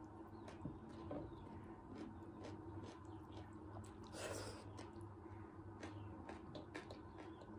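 Faint eating sounds of a person eating rice by hand and chewing: small scattered clicks of chewing and fingers in the food. There is a brief louder noise about four seconds in as a handful of rice goes into the mouth.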